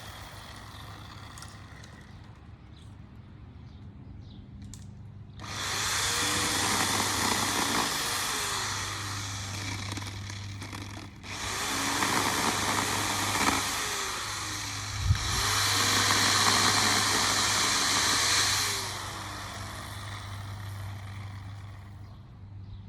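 Chainsaw running steadily, then cutting into wood three times, each cut lasting a few seconds; between and after the cuts it drops back to a steady run. There is a sharp knock partway through the third cut.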